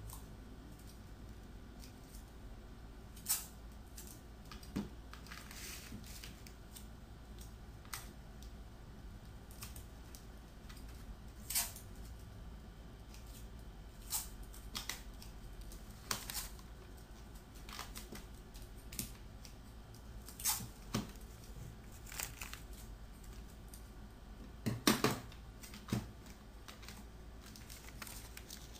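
Scissors snipping and a plastic cover sheet crinkling under the hands: irregular scattered sharp clicks and rustles, with a louder cluster of snaps near the end.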